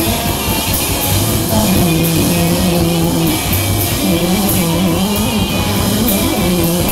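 Live rock band playing loudly: guitar and drums with regular cymbal strikes, and a singer's voice wavering in pitch from about a second and a half in.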